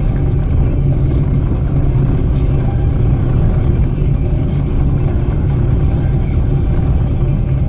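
A car being driven, with the steady low rumble of engine and road noise.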